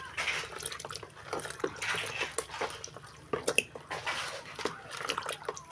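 Metal spoon stirring a thick coconut-milk ice-cream mixture in a plastic bowl: irregular clicks and scrapes of the spoon against the bowl with wet sloshing of the batter.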